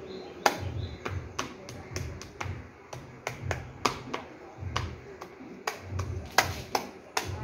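Hands tapping and pressing a wall-hung wall-art panel against the wall: an irregular run of sharp taps and clicks, roughly three a second, some with a dull thump under them.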